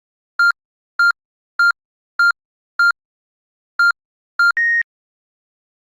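Home alarm unit beeping: seven short, identical electronic beeps about 0.6 s apart, with a brief pause after the fifth, then a single longer, higher-pitched beep.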